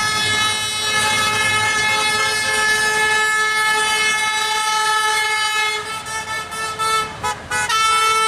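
A passing vehicle's horn honking in support of the protest: one long blast of about six seconds, then a few short toots, then another long blast near the end.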